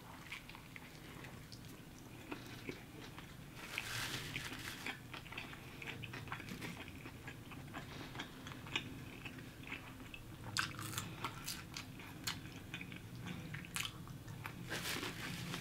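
A person biting and chewing food, with soft mouth sounds and scattered small crunches and clicks that come in little clusters.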